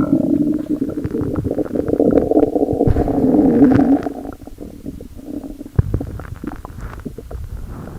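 Stomach growling: a long, gurgling rumble full of small pops and squelches, loudest through the first half and dropping to quieter gurgles after about four seconds.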